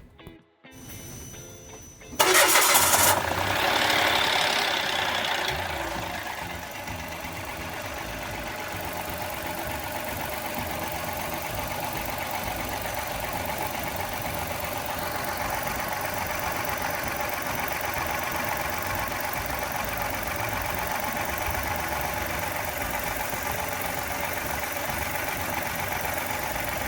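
2018 Mitsubishi Mirage's 1.2-litre three-cylinder engine cranked and started about two seconds in. It runs at a raised fast idle for a few seconds, then settles to a steady idle, circulating the fresh oil after an oil change.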